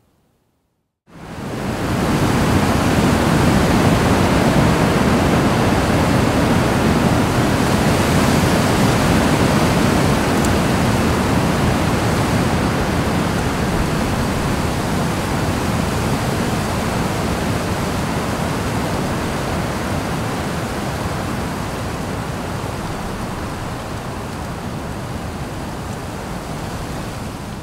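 Wind blowing across the microphone: a steady rushing noise that starts abruptly about a second in and slowly eases toward the end.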